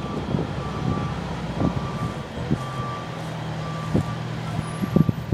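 Fire truck's reversing alarm beeping about once a second over its steady engine running, with a few short knocks near the end.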